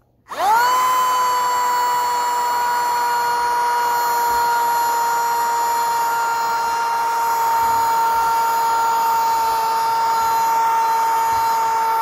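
Homemade miniature vacuum cleaner in an Altoids tin, its small 9-volt battery motor and impeller fan switched on. It spins up within a fraction of a second to a steady high-pitched whine.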